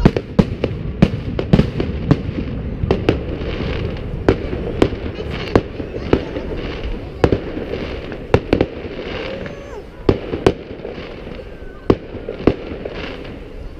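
Fireworks display: aerial shells bursting in an irregular run of sharp bangs, about one or two a second, over a steady rumbling haze. The bangs grow sparser and a little quieter in the second half.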